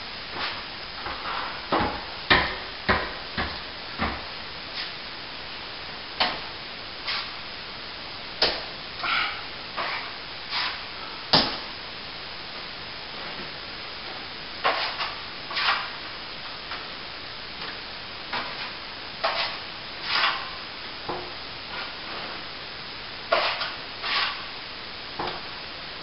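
Hand plastering tools clicking, tapping and scraping at irregular intervals as cornice cement is applied and worked into a plaster archway, with the sharpest knocks a few seconds in and near the middle.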